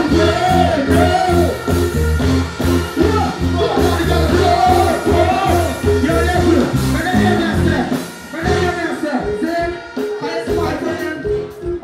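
Live dancehall music through a large PA: a loud, bass-heavy beat with a performer's voice chanting into a microphone. About eight seconds in the bass drops out and the beat thins, leaving mostly the voice.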